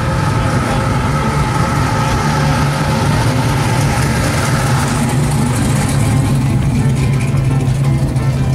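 Chevrolet Chevelle SS's V8 running at low speed as the car rolls slowly past, a steady deep exhaust note with little change in pitch.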